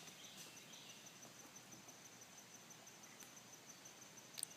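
Near silence, with a faint, steady, high-pitched pulsing chirp of insects and a couple of small clicks near the end.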